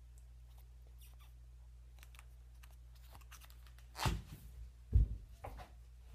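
A slime container being handled and opened: scattered light clicks and crackles, then two louder knocks with a dull thud about four and five seconds in.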